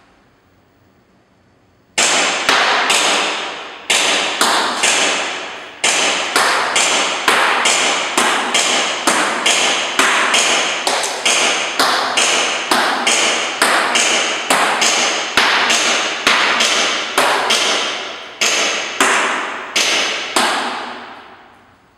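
Airsoft shooting: a rapid string of sharp taps, about two to three a second with a few brief pauses. Each tap trails off quickly. It starts about two seconds in and stops just before the end.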